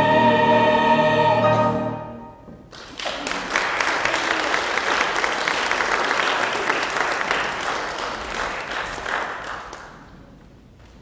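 Church choir ending an anthem on a held chord that fades out about two seconds in. A second later the congregation applauds for about seven seconds, dying away near the end.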